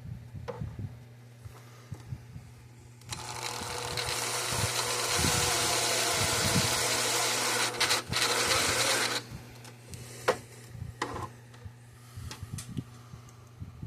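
Electric drill running under load for about six seconds, starting about three seconds in, with a brief stop near the eight-second mark. A few light knocks of handling follow.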